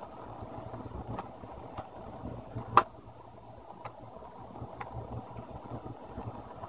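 A few light clicks and taps of laptop plastic parts and screws being handled, the loudest a little under three seconds in, over a steady low background hum.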